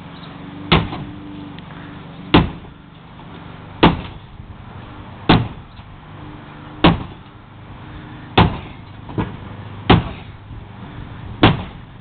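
Sledgehammer blows striking a shed being demolished: eight heavy, evenly paced strikes, about one every second and a half.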